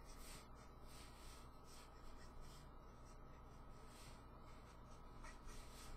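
Faint scratchy strokes of a Copic alcohol marker's tip rubbing back and forth on white cardstock, about two strokes a second, as a dark line is thickened.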